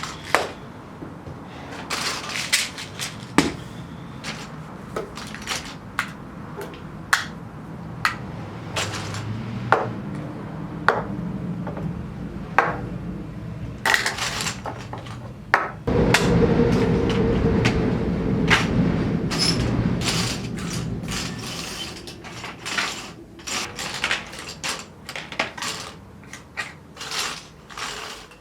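Small hard objects being handled: many separate clicks, clacks and knocks, with a louder rumbling scrape lasting several seconds about halfway through.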